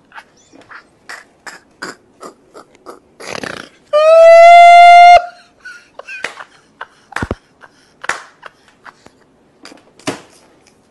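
A man's helpless laughter on air: a string of short gasping bursts, then a loud high-pitched squeal lasting about a second about four seconds in, followed by more short gasps.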